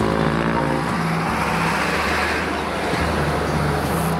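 Road traffic: motor vehicles running and passing, a steady mix of engine and road noise.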